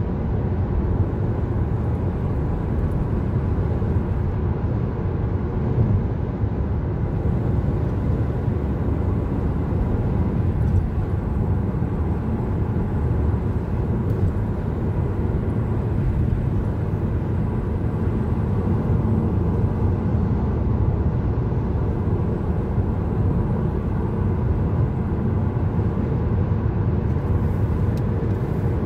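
Steady road and engine noise of a car driving at speed on a highway, heard from inside the cabin as a constant low rumble.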